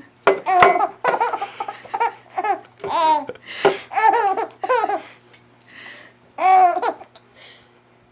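A three-and-a-half-month-old baby laughing in a string of short, high bursts. A ceramic coffee mug knocks against the desk about half a second in as it is tipped over.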